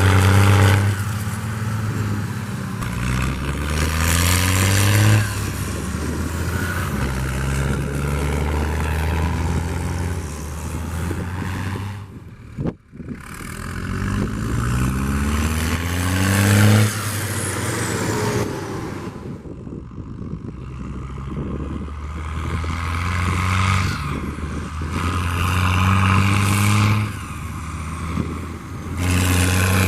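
IH 1455 XL tractor's six-cylinder diesel engine being revved again and again, the pitch climbing and falling back between steady high revs. The sound breaks off abruptly for a moment about a third of the way through.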